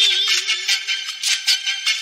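Background music: a sung pop song's accompaniment with held instrumental notes and a steady beat.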